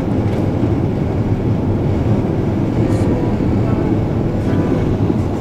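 Steady low road and engine noise inside a moving car.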